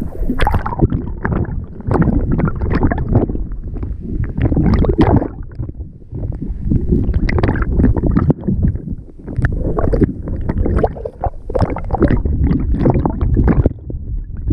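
Water sloshing and gurgling over an action camera's waterproof housing while it is under the surface, heard muffled and low, in irregular surges.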